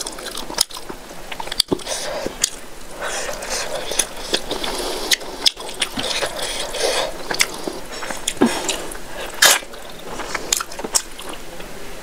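Close-miked wet squishing of fingers mashing rice into fish curry on a plate, with frequent sharp, sticky clicks.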